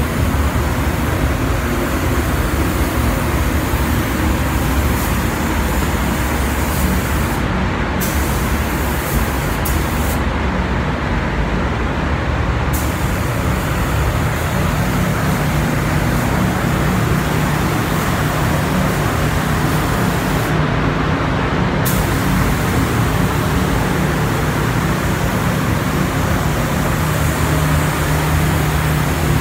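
Hose gun spraying water onto a concrete floor, a steady hiss over a low, steady mechanical hum. The hiss stops briefly three times.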